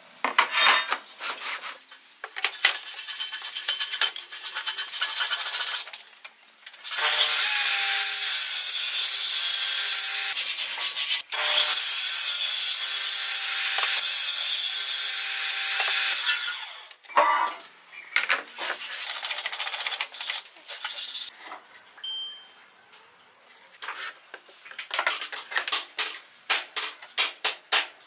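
Wooden crosscut sled knocked and slid about on a table saw's steel top, then the table saw runs for about nine seconds, cutting wood through the sled with a steady whine. Near the end come more scattered clicks and taps of handling.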